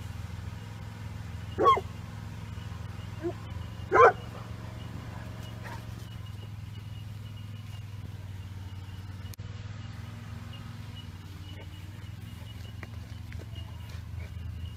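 A large tan dog barks twice, about two and four seconds in, with a fainter bark between. A steady low hum runs underneath.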